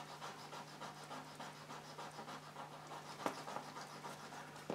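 Cotton bud scrubbing quickly back and forth over the painted surface of an old oil painting, faint strokes about four a second, lifting smoke-stained grime. A small tap about three seconds in.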